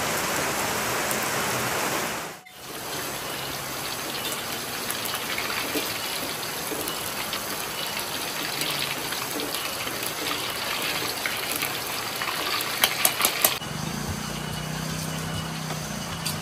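Heavy rain falling steadily, then, from about two and a half seconds in, hot oil sizzling as pieces of tofu fry in a wok, with a few quick knocks near the end. In the last few seconds a low steady hum takes over.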